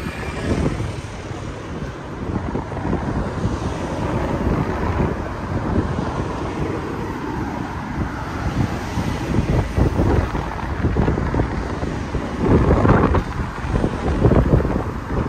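Wind buffeting the microphone over the steady noise of city street traffic, with stronger surges near the end.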